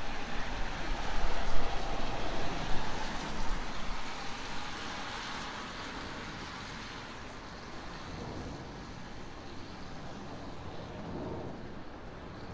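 A plane passing overhead, its rushing engine noise fading over the first four or five seconds into a steady distant hum. Low rumble from wind on the microphone at the start.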